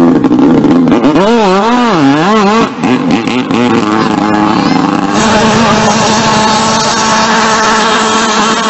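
Small engine of a tiny speed boat revving hard: its pitch swings up and down a few times, then holds steady at full throttle from about five seconds in as the boat planes off, with a hiss of water spray.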